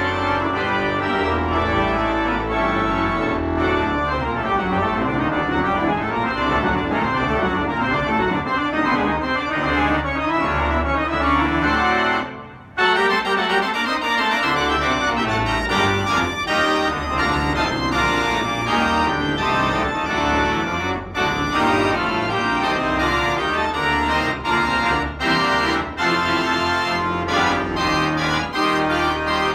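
Spreckels pipe organ playing a classical piece in full chords over a deep pedal bass. The sound breaks off for about half a second roughly twelve seconds in, then resumes, with short gaps between chords in the later part.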